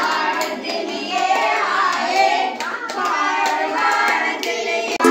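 A group of children singing together while clapping their hands along.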